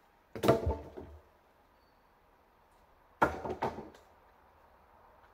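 Hammer blows on the wooden roof battens of a log hut: two quick runs of several knocks each, about three seconds apart.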